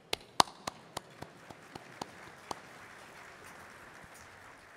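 Audience applause: a run of sharp single claps, about four a second, over a soft spread of clapping that slowly fades.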